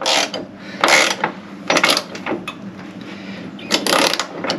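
Socket ratchet clicking in several short bursts about a second apart as a Jeep JL body-mount bolt is worked back and forth by hand to clear its threads, a bolt known to seize and break.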